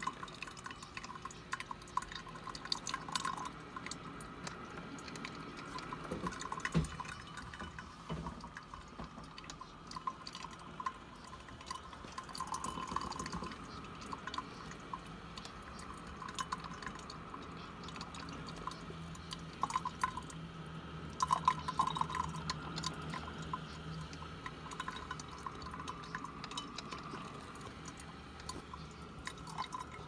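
Black & Decker Spacemaker drip coffee maker brewing: coffee dripping and trickling from the brew basket into the glass carafe, with irregular small ticks and pops, busiest a little past the middle.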